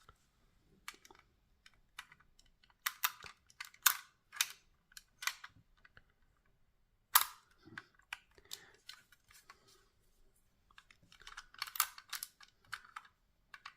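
Plastic LEGO pieces of a LEGO puzzle box clicking and knocking as the box is handled and a loose piece inside is pushed at. Scattered clicks come in clusters, with one sharp click about seven seconds in.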